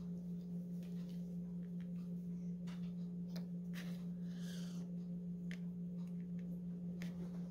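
A steady low hum with a fainter steady tone above it, and scattered faint light clicks of tweezers picking up and placing small stick-on gems.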